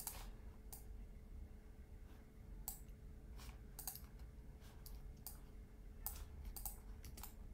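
Faint, irregular clicks from a computer mouse and keyboard, about a dozen spread unevenly, over a low steady hum.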